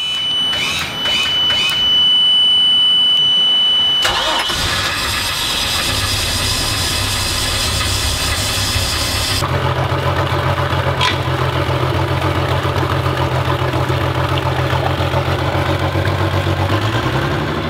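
The 190 hp MerCruiser 4.3-litre V6 sterndrive engine of a 2006 Bayliner 192 starting on the first turn of the key: a steady high warning buzzer sounds until the engine catches about four seconds in, then the engine settles into a steady idle, running on a garden-hose water supply to the Alpha One drive, with a slight rise in pitch near the end.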